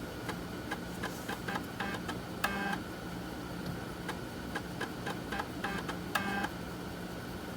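3.5-inch floppy disk drive reading a disk under test: irregular clicking of the head stepping across the tracks, with two short buzzing seeks about two and a half and six seconds in.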